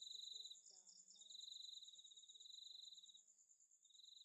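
Faint night-insect chorus. One steady, rapidly pulsing high trill runs throughout, and a second, lower trill comes in bouts of about two seconds with short gaps.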